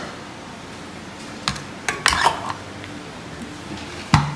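A metal ice cream scoop clinking and scraping against a glass dish while scooping soft, melted ice cream: a few sharp clinks and a short scrape in the middle, and a louder clink near the end.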